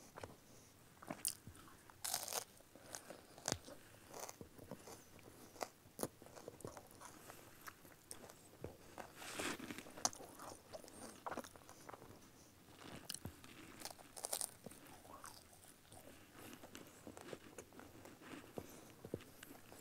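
Crunching and chewing of a Hillel sandwich: matzah folded around lettuce, charoset and wasabi used as the bitter herb, bitten into and chewed in irregular crunches.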